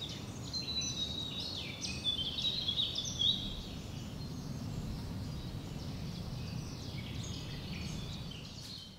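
Small birds chirping and singing in quick, high, gliding calls over a steady low background rumble. The calls are busiest in the first three seconds, come back more faintly near the end, and everything fades out at the close.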